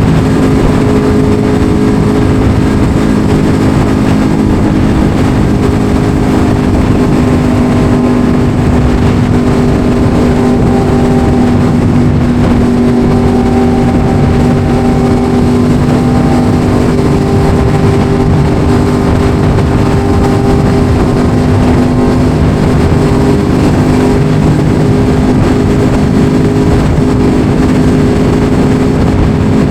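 Yamaha R1 sport bike's inline-four engine running at a steady cruise, its pitch holding nearly constant with only slight rises and dips.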